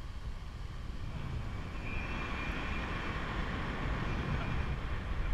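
Wind buffeting an action camera's microphone as the riders hang and swing in the canyon swing harness: a steady low rumble, growing a little stronger in the second half, with a faint high whine in the middle.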